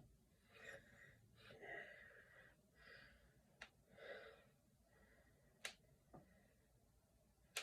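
Finger and knuckle joints cracking: four faint, sharp pops spread over the second half, the last near the end, between soft hissy rustles.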